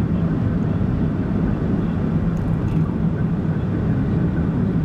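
Steady road and engine noise of a car cruising along a road, heard from inside the car: an even low rumble from the tyres and engine.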